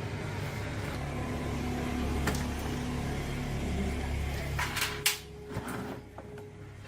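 Steady low machine hum, broken by a few sharp clicks and knocks about five seconds in, after which the hum drops away and a fainter single tone remains.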